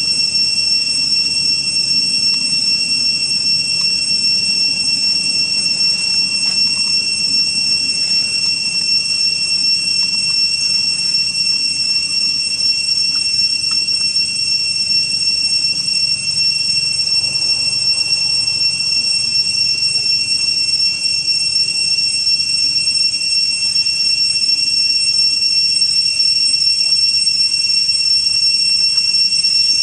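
A steady, loud, high-pitched drone made of two shrill tones held without change, over a faint low rumble.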